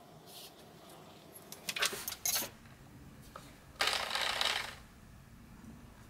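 Tools being handled on a work surface: a quick run of light clicks and clatters, then a short scraping rustle about four seconds in.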